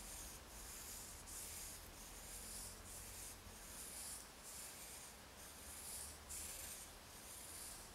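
Pencil drawing on paper: faint, short scratchy strokes, about one or two a second, as the curves of an ellipse are sketched.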